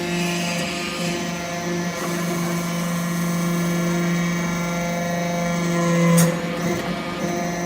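Hydraulic briquetting press for aluminium chips running with a steady mechanical hum, with a short knock about six seconds in.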